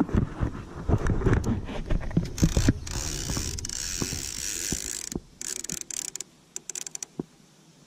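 Conventional fishing reel and rod being handled in a jon boat. Knocks and clicks come first. About three seconds in, a steady hiss of line pays off the free-spooling reel for about two seconds, followed by a few light clicks.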